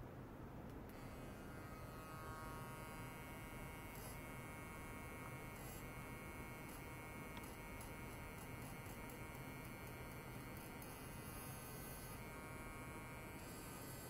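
Faint electrical buzz from a piezoelectric ultrasonic probe driven by a function generator: several high steady tones that come in about a second in, over a low hum, with a few soft clicks.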